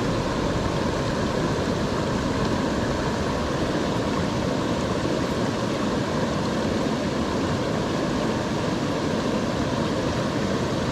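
Steady rush of a mountain river's flowing water, an even, unbroken noise throughout.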